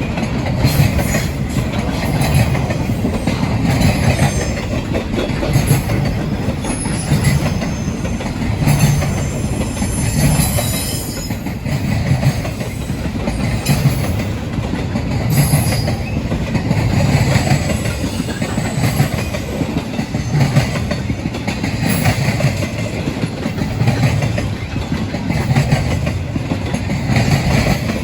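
Freight train cars rolling past with a steady, rhythmic clickety-clack of wheels over rail joints, and a brief high wheel squeal about ten seconds in.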